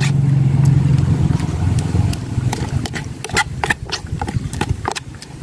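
Metal spoon scraping and clicking against the inside of a plastic jug as ripe noni fruit pulp is mashed, with a run of quick clicks in the second half. Under it, a steady engine hum fades away about two seconds in.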